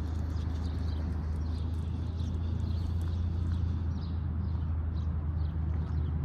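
A steady low rumble of outdoor noise, with faint, scattered short ticks over it.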